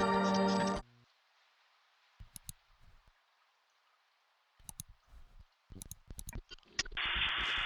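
Music stops abruptly under a second in, leaving faint hiss broken by a few scattered small clicks and taps. About seven seconds in, a loud steady hiss with a low hum begins.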